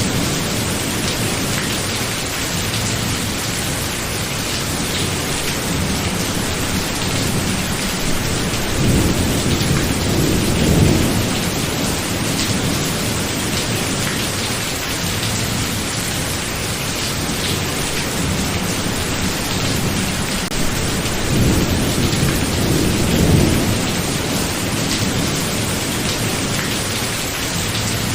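Thunderstorm: steady heavy rain, with two long low rolls of thunder, one starting about nine seconds in and another about twenty-one seconds in.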